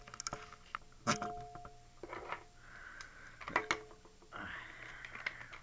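Plastic toy packaging being pried and twisted open by hand: scattered sharp clicks and knocks, two brief squeaks, and a crinkly rustle of plastic near the end.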